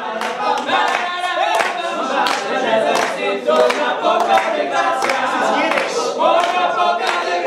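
Male a cappella group singing together in harmony, with guests clapping along to the beat.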